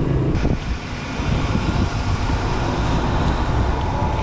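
Motorcycle on the move: a steady low engine hum under a rushing haze of wind noise, with a brief click about half a second in.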